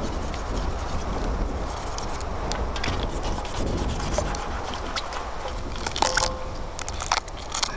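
A kitchen knife scraping and slicing the skin of boiled ox legs in a metal wok, a steady rough scraping with scattered sharp clicks.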